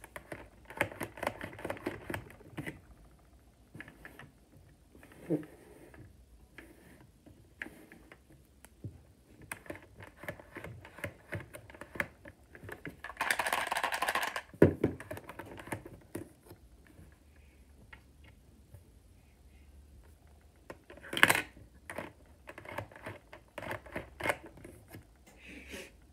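A Lego-brick candy machine being handled: many light plastic clicks and knocks of the bricks. About 13 seconds in it is lifted and tipped, giving a longer rattle and then a heavy knock, with another loud knock about 21 seconds in.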